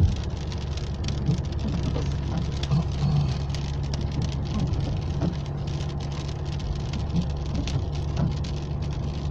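Raindrops hitting the roof and windshield of a moving car, heard inside the cabin as many irregular ticks over the steady low rumble of the engine and tyres.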